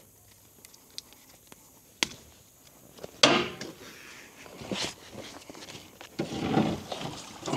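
A few sharp knocks, a loud bang about three seconds in, then scraping and shuffling: a caught alligator being hauled and shifted about in a boat.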